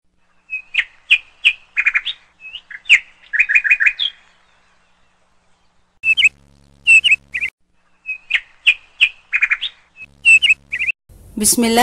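Bird chirping in short phrases of quick, sharp notes, with pauses of a second or two between the phrases.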